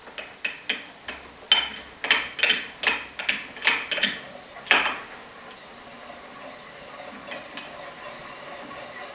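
A series of sharp clicks, about two or three a second, while the speed-setting control of a closed-loop motor controller is turned up. They stop about five seconds in, leaving the steady hum of the motor-driven disc spinning faster.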